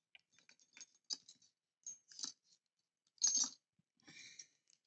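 Small plastic packet of screws crinkling and rustling as fingers pick at it to pull it open, in scattered faint crackles with a louder crinkle about three seconds in.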